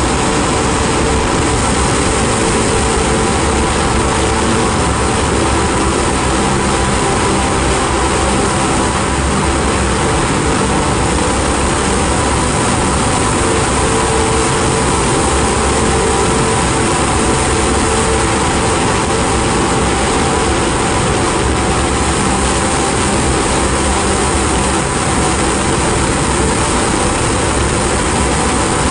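Ambient drone-noise music: a dense, unchanging wash of hiss and rumble with a few held tones inside it, one mid tone swelling in and fading out.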